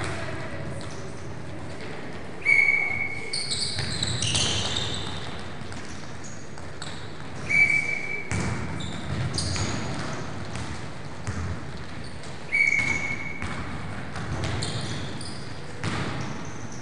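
Basketball shoes squeaking and shuffling on a sports hall floor during a defensive side-shuffle drill, with a sharp bright squeak about every five seconds.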